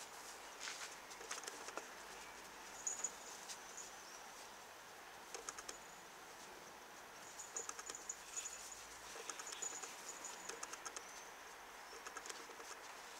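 Faint scuffling and soft taps of White Swiss Shepherd puppies tussling on grass, with brief high-pitched chirps now and then.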